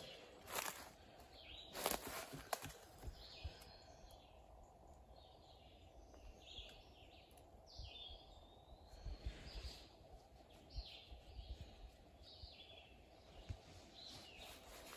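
Faint forest birdsong: a bird giving short, high chirping calls every second or so, some of them sliding in pitch. A few crunching footsteps come in the first couple of seconds.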